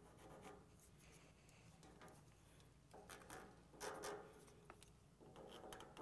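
Faint scratching of a pencil tracing around a round power switch held on blue painter's tape, in short strokes that are loudest three to four seconds in.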